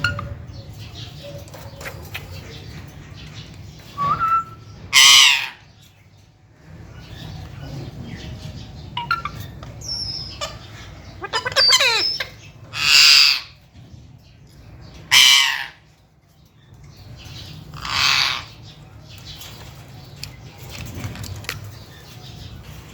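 Green parrot squawking loudly about four times, a few seconds apart, with a short whistle just before the first squawk and a wavering, warbling call in between.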